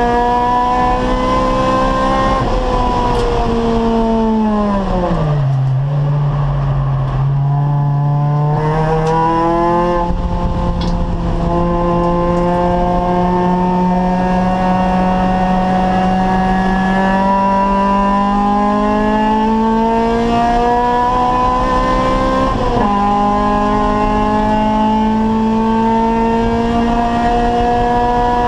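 Acura Integra Type R's four-cylinder VTEC engine under race load. It runs high, then drops steeply in pitch over about three seconds as the car slows and holds low for a few seconds. It then climbs back up and rises slowly through a long pull, with a brief gear change about 23 seconds in.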